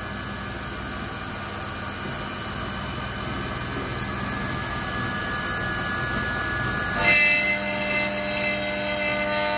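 CNC milling machine spindle running with an end mill feeding slowly along a billet aluminium intake runner, dry with no coolant. About seven seconds in it gets louder and several ringing tones come in as the cutter starts cutting the aluminium face.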